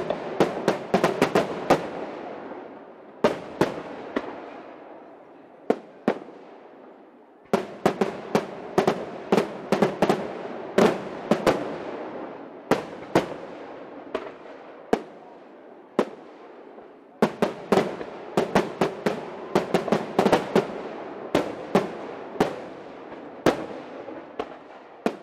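Aerial firework shells bursting overhead in rapid volleys of sharp bangs, each dying away in reverberation. The volleys thin to scattered single bangs for a few seconds about four seconds in and again near the end.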